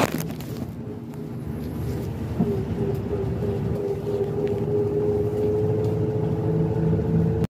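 Inside a moving city bus: steady engine and road rumble with a whine that rises slightly about two and a half seconds in and then holds. The sound cuts off suddenly near the end.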